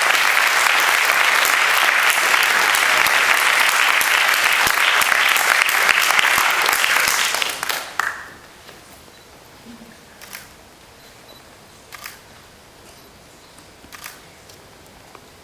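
Audience applauding, which dies away about halfway through. A few separate camera shutter clicks follow in the quieter room.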